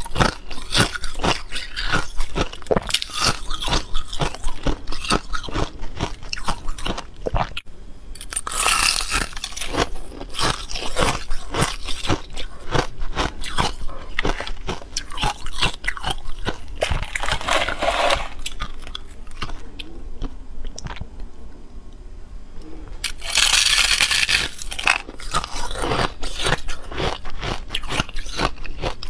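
Close-up crunching and chewing of ice: bites of a hard, hollow frozen ice ball's shell and the fluffy frost crystals grown inside it, in quick crackling crunches. The crunching thins out about two-thirds of the way through, then comes back louder.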